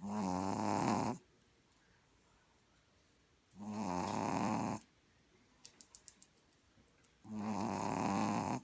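Sleeping puppy snoring loud: three snores about three and a half seconds apart, each lasting about a second.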